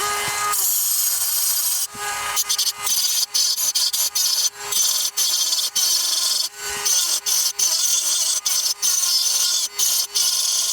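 Dremel rotary tool running at high speed with a fresh disc, grinding material off an airsoft gearbox shell in many short passes, so the grinding noise cuts in and out repeatedly over a steady motor whine.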